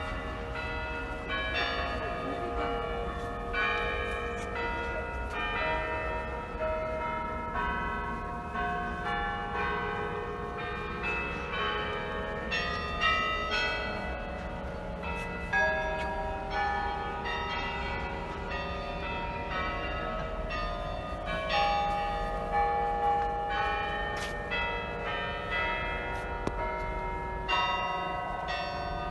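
Church bells ringing a continuous peal: many bells of different pitches struck in quick succession, each ringing on over the others.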